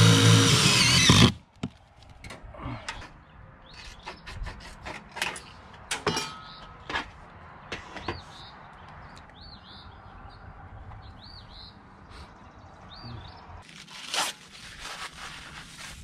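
Cordless drill running steadily for about a second as it drives a screw, then stopping abruptly. After it, scattered light knocks and taps as material is handled, with another short noisy burst near the end.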